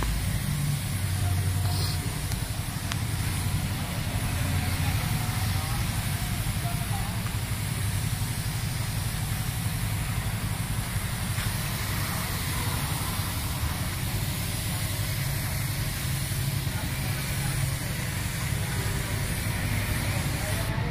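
Gravity-feed paint spray gun hissing steadily with compressed air as it sprays paint onto a car's bumper and fender, over a low steady rumble.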